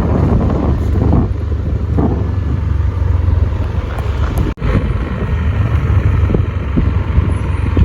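A vehicle on the move: a steady low rumble of engine and road noise, with wind buffeting the microphone. The sound drops out for an instant a little past halfway, then carries on as before.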